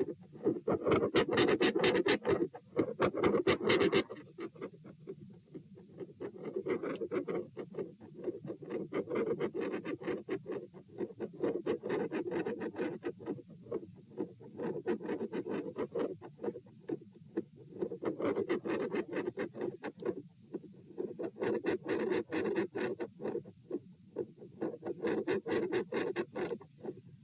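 Rapid heartbeat heard through a stethoscope at the pulmonic area, its whooshing background swelling and fading every few seconds. The recorder takes these swells for phasic pressure changes, possibly from a PFO shunt. A loud rough scratching covers the first four seconds.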